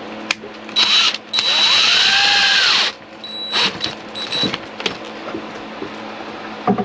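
Power drill with a socket bit driving the screw of a stainless steel worm-drive hose clamp tight on flexible air-conditioning duct. It gives a short burst, then a longer run of about a second and a half with the motor's pitch rising and falling, then a couple of brief bursts.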